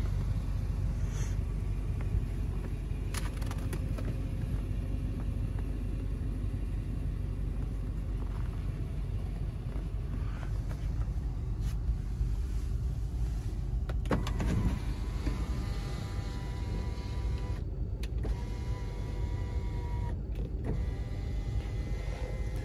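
Power sunroof on a 2004 Lexus LX470 sliding open: a clunk, then the sunroof motor whines steadily for several seconds. A steady low rumble runs underneath.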